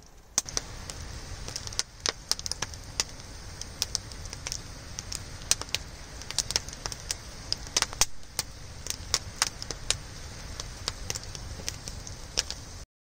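Wood campfire crackling, with many sharp irregular pops and snaps over a steady low rumble; the sound cuts off suddenly near the end.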